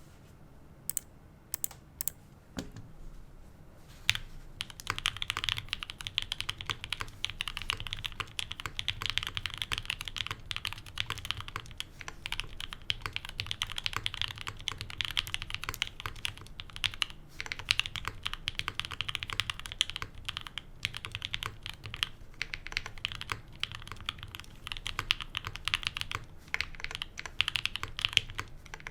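Typing on a Mode65 custom mechanical keyboard with a POM plate, case and plate foam, 67g Tangerine linear switches and GMK keycaps: a few separate keystrokes at first, then steady fast typing from about four seconds in. A faint fan hum runs underneath.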